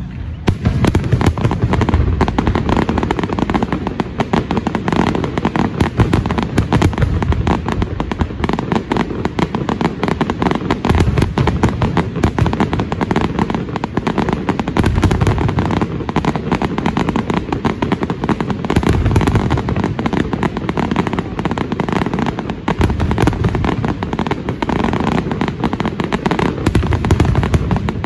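Aerial firework shells bursting in a dense, continuous barrage: rapid overlapping bangs and crackling, with several heavier, deeper booms standing out.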